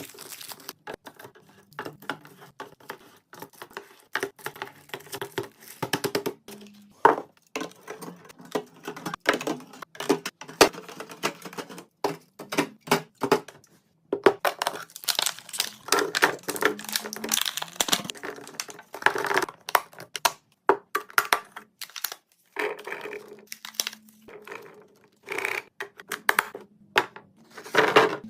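Plastic packaging crinkling and rustling, with many irregular clicks and light knocks from containers and items being handled and set down while restocking a fridge.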